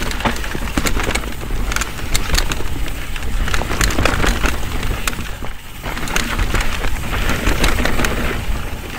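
Mountain bike riding down a dirt singletrack: knobby tyres crunching over packed dirt and dry leaves, with a steady run of sharp rattling clicks from the bike over the rough ground.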